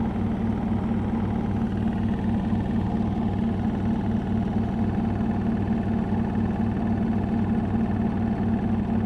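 Samsung Ecobubble washing machine spinning at high speed in its 1200 rpm spin stage: a steady hum from the digital inverter motor and drum, with a fast, even throb.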